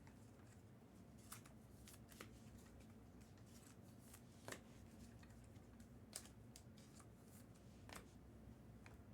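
Near silence with faint, scattered handling noises of trading cards: about half a dozen soft swishes and clicks as cards are slid and sorted, over a steady low hum.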